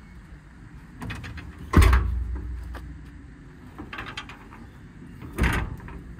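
Steel service-body compartment doors on a utility truck being shut: light paddle-latch clicks, and two doors slammed closed with a heavy metallic thud, one about two seconds in and another near the end.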